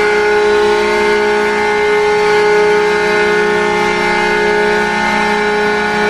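Hadley Ambassador air horn set blowing one long, steady chord of several pitches together, sounding as a hockey goal horn.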